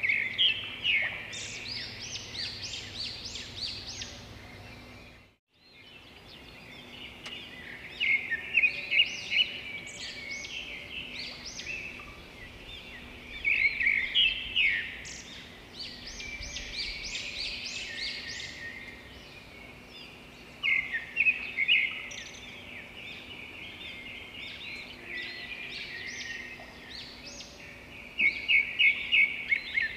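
Birds chirping in repeated bursts of rapid, high chirps over a faint steady hum, with a brief dropout about five seconds in.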